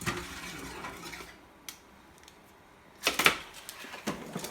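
Kitchenware being handled: a scraping rustle, then a loud metallic clatter about three seconds in and a shorter one just after, as with a baking tray and utensils being set down.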